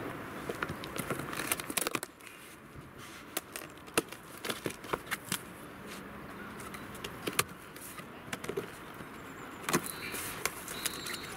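A box cutter slicing along the taped seam of a cardboard box, then the stiff cardboard flaps being pulled open and folded back, with scattered scrapes, creaks and taps.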